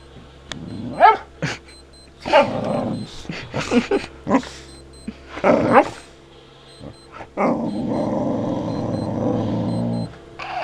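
Boxer dog giving a string of short yelping barks, then a long low growl near the end, worked up by a digital watch whose faint, repeating high beeping runs underneath.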